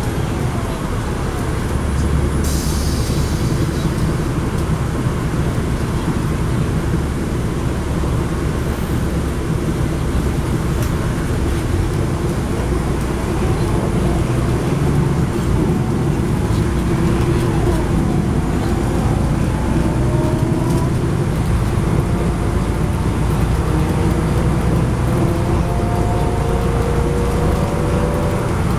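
Cabin noise inside a 2010 NABI 40-SFW transit bus under way: its Cummins ISL9 diesel engine and drivetrain running, with steady road and tyre noise. A short hiss comes about two seconds in, and a faint whine rises and falls in pitch in the second half.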